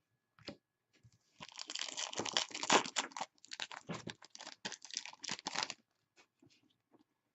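Foil trading-card pack wrapper crinkling and tearing, a dense burst of crackling from about a second and a half in until nearly six seconds, with light clicks of cards being handled before and after.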